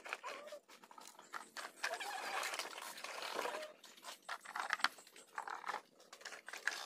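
Scattered animal calls, mixed with sharp clicks and knocks as plastic toy dump trucks are set down in wet sand.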